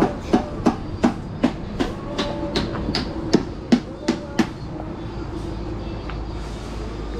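Rapid, evenly spaced hammer strikes at a building site, nearly three a second, stopping about four and a half seconds in; a steady low hum carries on after them.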